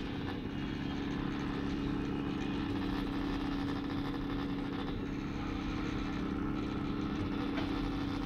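Home-built repstrap 3D printer running with a steady mechanical hum that holds one low pitch throughout.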